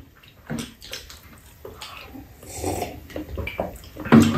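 Close-up eating sounds from a mukbang of chicken tteokbokki: wet chewing and slurping, with scattered light clicks of metal spoons against the bowls.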